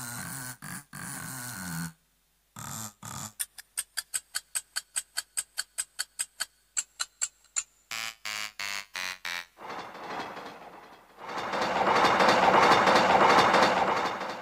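Casio CT-X700/CT-X870IN keyboard's built-in sound-effect tones played one after another. First a pitched sound for about two seconds, then rapid even ticking at about six a second, a few quick strokes, and a loud rushing noise that swells and fades near the end.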